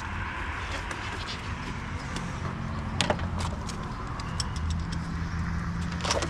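Metal hand tools clinking and tapping on bolts and engine parts, with a sharper clank about three seconds in and another near the end, over a steady low hum.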